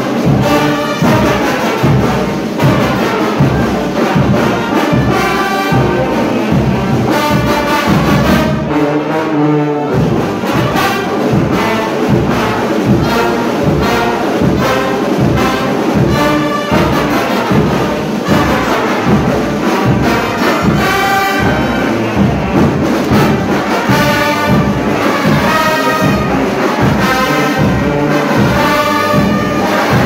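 Live frevo brass band playing loud and fast: trombones and trumpets over sousaphones, with a steady drum beat. About nine seconds in, the drums and low brass drop out for about a second under a held chord, then the band comes back in.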